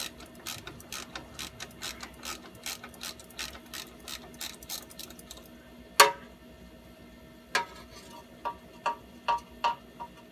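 Ratchet wrench clicking in quick, even strokes as a lock nut is worked off a bolt. About six seconds in there is one loud, sharp metal clank, followed by slower clicks that ring.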